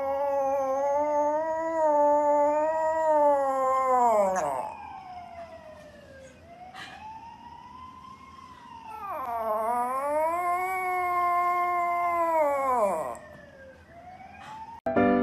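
Poodle giving two long, wavering, siren-like howls, each several seconds long, rising at the start and sliding down at the end, with a softer falling whine between them.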